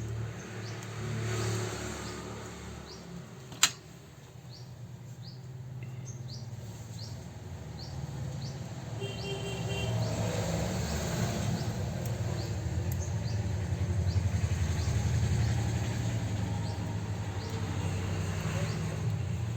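Steady low background hum with faint, short high chirps repeating about twice a second, and one sharp click a few seconds in.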